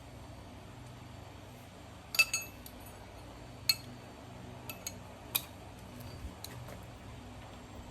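Metal tools and engine parts clinking as they are handled and set down. There are several sharp clinks: the loudest comes about two seconds in and rings briefly, and the rest are scattered after it.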